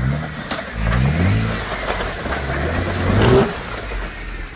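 Off-road vehicle's engine revving as it crawls over a trail obstacle, its pitch rising twice in the first second and a half, with a few sharp knocks.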